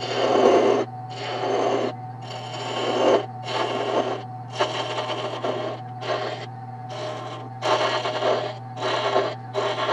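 Wood lathe running with a steady motor hum while a turning tool cuts into the spinning wooden blank in about ten repeated passes, each about a second long, with short gaps between: shaping the piece.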